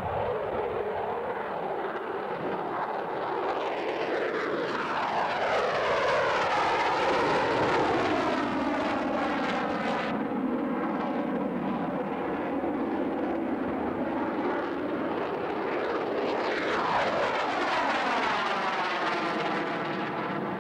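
F-22 Raptor's two turbofan engines, loud and continuous, as the jet manoeuvres overhead. The noise sweeps up and down in pitch with a rushing, phasing quality as the jet's distance and angle change, swelling loudest about a third of the way through and again near the end.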